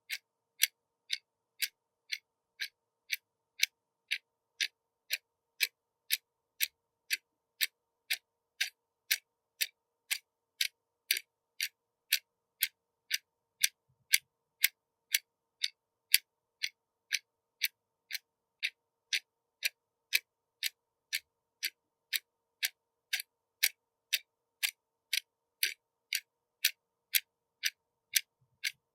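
Watch ticking steadily, about two sharp, evenly spaced ticks a second.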